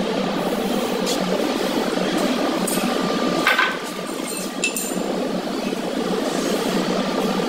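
A few light clinks and taps of tools on marble floor tiles, one with a short ring about three and a half seconds in, over a steady background noise.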